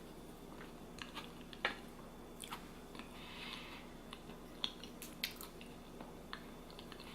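A person chewing food, faint, with scattered small clicks and smacks from the mouth.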